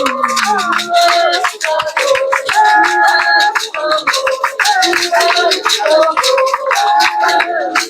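Festival music: several voices singing together in harmony over a shaken rattle keeping a steady rhythm.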